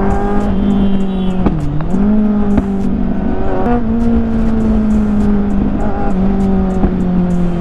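Kawasaki inline-four sport bike engine running at steady revs while riding, with wind noise on the microphone. About a second and a half in, the revs dip briefly and come back, and a couple of seconds later they rise a little.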